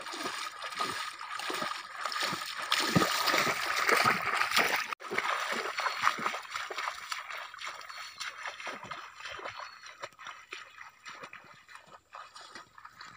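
Feet wading through shallow marsh water: irregular sloshing and splashing steps, loudest in the first five seconds and growing fainter after that.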